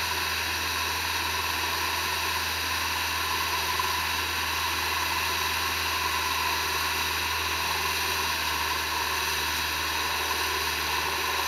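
A tow boat's engine running steadily under way, heard on board, with the rush of water from its wake.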